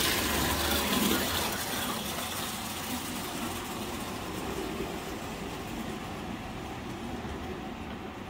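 Toy electric trains running on a model railway layout, a steady rolling noise that slowly grows quieter.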